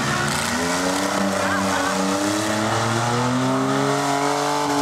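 Several demolition derby cars' engines running and revving together, their pitch slowly rising and falling as the drivers push and ram each other.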